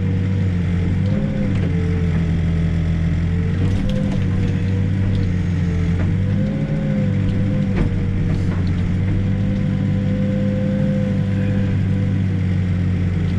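Backhoe's diesel engine running steadily under digging load, its pitch rising and falling briefly a few times as the hydraulics work, with a few sharp knocks.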